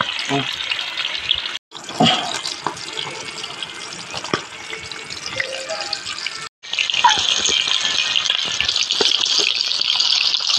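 Whole chicken frying in hot oil in a karahi, a steady sizzle full of small crackles and pops. The sound cuts out briefly twice, and is loudest after the second break.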